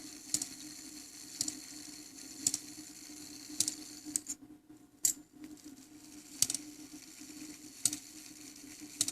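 Japy Frères French clock movement striking eight o'clock: eight single hammer blows, about one every second and a quarter, each ringing briefly, with the gaps widening slightly toward the end. The strike train and count wheel are working as they should.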